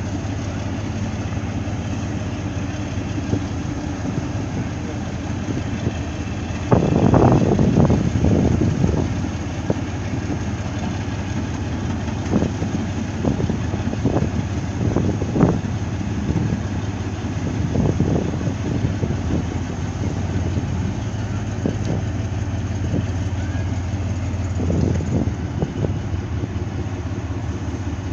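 Steady low drone of a ship's engine running, with a louder rumbling stretch about seven seconds in and scattered short knocks.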